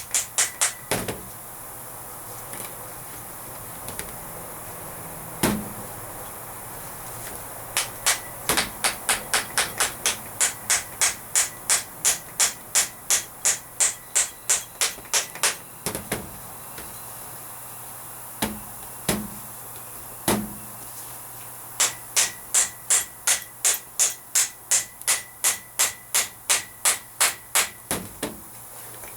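Hammer blows on steel, with a sharp metallic ring, while a U-joint is fitted to a heavy-truck axle shaft. The blows come in long steady runs of about three a second, with a few single blows in between.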